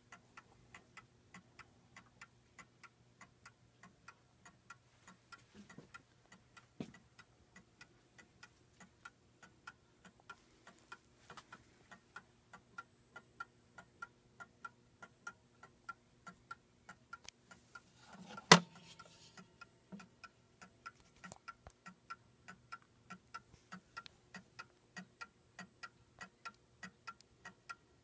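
Franz Hermle Art Deco mantel clock's key-wound mechanical movement ticking steadily and evenly, with a single sharp knock about two-thirds of the way through.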